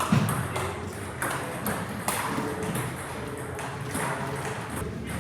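Table tennis balls clicking off paddles and tables in a club hall: an irregular patter of sharp hits, with a louder thump at the start.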